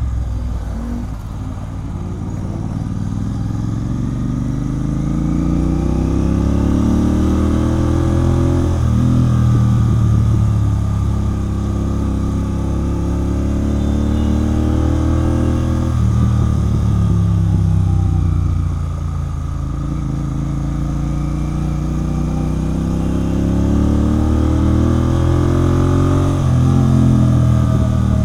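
Royal Enfield Continental GT 650's parallel-twin engine through an aftermarket Red Rooster exhaust, pulling through the gears. The engine note climbs steadily and drops sharply at upshifts: once about a third of the way in, again just past halfway, with a dip soon after, and then it climbs once more and drops near the end.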